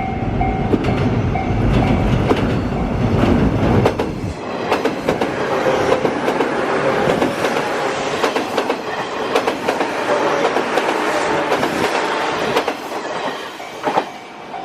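JR West 201 series electric train running by on the track, wheels clattering over rail joints. A heavy low rumble for the first four seconds gives way to lighter, sharper clatter with a faint squeal of wheels on rail.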